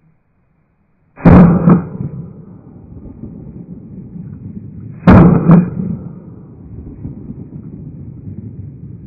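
Two shotgun shots fired at a flock of flying ducks, about four seconds apart. Each blast is followed by a second sharp crack about half a second later, and a low rumble lingers after them.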